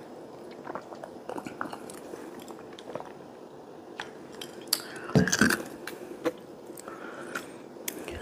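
Close-miked eating sounds: chewing and mouth noises with scattered small clicks of wooden chopsticks against plastic takeout containers, and one louder mouth sound a little after five seconds in.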